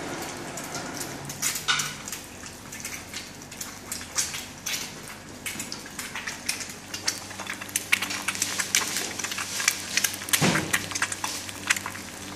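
An egg frying in oil in a small black pan over a gas flame: a sizzle with irregular crackling pops of spitting oil, thicker toward the second half.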